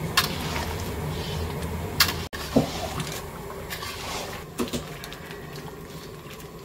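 Thick vegetable curry bubbling in a large iron kadai, with a steady low rumble underneath and a few sharp knocks and scrapes of a metal ladle against the pan.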